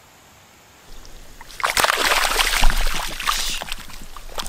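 A largemouth bass thrashing and splashing in shallow, moss-covered pond water as it is let go, throwing spray. The splashing starts about a second and a half in and is loudest, with a heavy slap, around two and a half seconds in, then goes on in smaller splashes.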